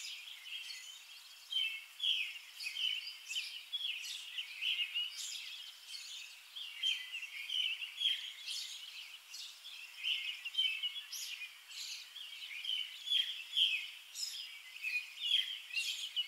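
Small birds chirping and singing, many short calls overlapping without a break, over a faint steady hiss.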